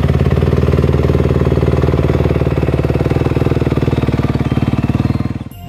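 Motocross bike engine idling steadily, with fast, even firing pulses and no revving.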